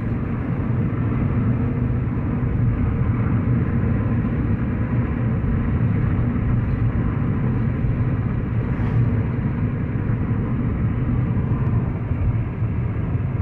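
Steady low rumble of tyres and engine heard from inside a car's cabin while driving at road speed.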